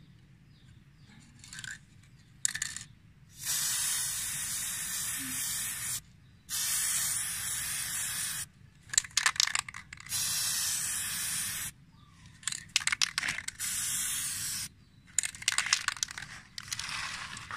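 Aerosol can of chrome-effect acrylic spray paint spraying: about four hissing bursts of roughly two seconds each, with short spitting spurts between them.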